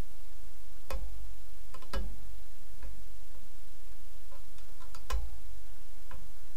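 Sparse, irregular metallic clicks and clinks of a wrench on the drive shaft's U-bolt strap nuts as they are worked loose, the sharpest about one, two and five seconds in. A steady low rumble runs underneath.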